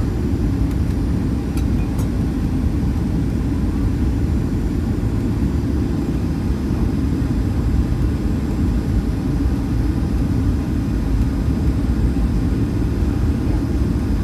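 Steady low rumble of a Boeing 737-900's engines and airflow, heard inside the passenger cabin.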